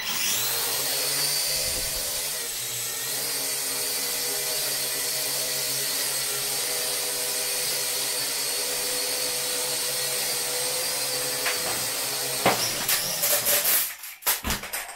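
Holy Stone HS650 quadcopter's motors and propellers spinning up for take-off, rising in pitch, then a steady high-pitched whine while it flies. About twelve seconds in, the whine breaks into a rapid clatter of knocks before the motors cut off.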